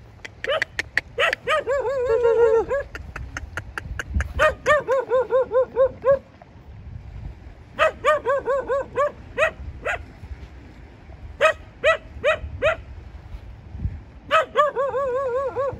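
A dog barking in bouts: single sharp barks and quick runs of barks strung closely together, several times over.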